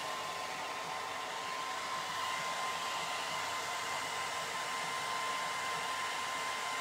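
A hair dryer running steadily: an even rush of air with a thin, constant whine.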